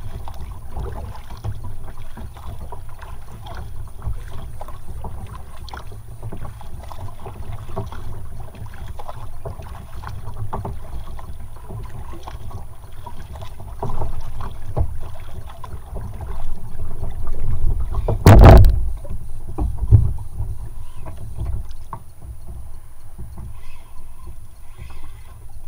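Kayak paddle strokes splashing, water lapping against the hull and wind rumbling on the microphone, with a loud knock about three-quarters of the way through; the strokes stop near the end.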